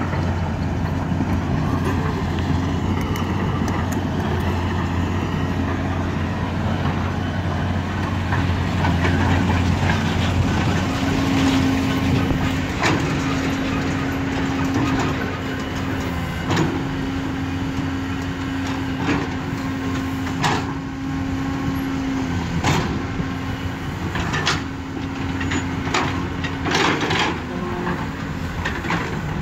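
Cat 320C hydraulic excavator's diesel engine running steadily as the machine digs, with a steady whine held through much of the middle. From about a third of the way in come scattered sharp knocks and clanks of the bucket working rocky soil.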